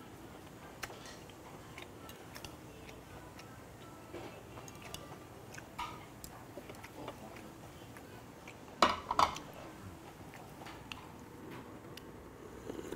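Quiet chewing with scattered small clicks of chopsticks and tableware. About nine seconds in comes a short, loud clatter of ceramic dishes and cutlery, as a plate and spoon knock against the bowl.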